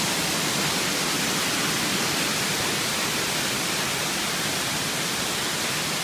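Amicalola Falls cascading over rocks at close range: a steady, even rush of white water with no break or change.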